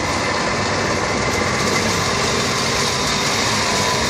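Kerisik grinding machine running steadily, grinding toasted grated coconut into a dark paste.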